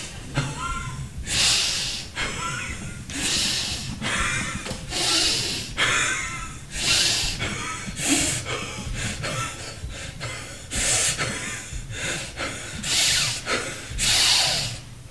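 A man breathing hard in loud, ragged gasps, about one breath a second, some breaths with a short voiced catch.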